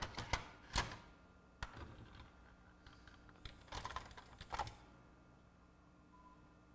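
Disc-changer mechanism of a Pioneer PD-DM802 magazine CD player clicking and clacking as it moves a disc: a quick run of sharp clicks in the first second, another cluster about four seconds in, then it goes still.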